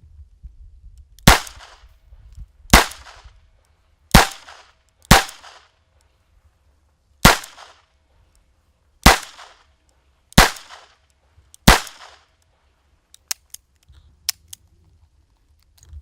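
Eight shots from a small handgun firing .22 long rifle 36-grain hollow points, each a sharp crack with a short ringing tail, fired at an uneven pace over about ten seconds. A few light clicks follow near the end.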